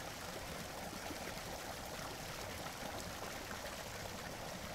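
Steady ambient sound of a stream's running water.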